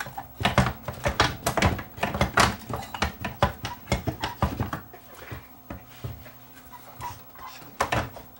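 Knocks, clicks and scrapes of a CRT monitor's chassis being slid back into its cabinet and handled. The clatter is busy for the first few seconds, then thins to a few scattered knocks.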